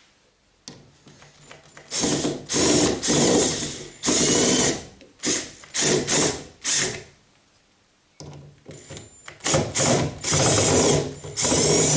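AEG cordless drill-driver run on a screw in the rear spoiler's end plate, in about ten short runs of up to two seconds, with a pause of about a second midway.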